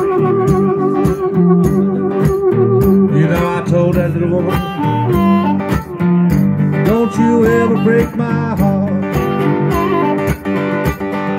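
Live blues band playing an instrumental break: an electric guitar lead with bent notes over bass and a steady drum beat, opening with a held, wavering note for the first few seconds.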